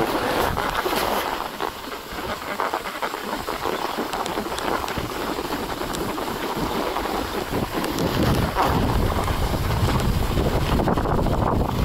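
Steady hiss and scrape of edges sliding down a groomed, tracked snow slope at speed, with wind rumbling on the microphone, much heavier from about eight seconds in.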